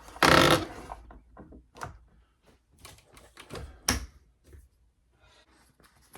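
A brief loud clatter, then a run of irregular sharp clicks and light knocks.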